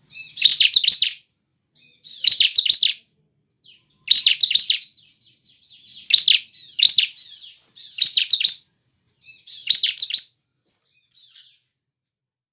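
Bar-winged prinia (ciblek) singing in short bursts of rapid, high chirping notes, about one phrase every two seconds, with a faint, brief last phrase near the end.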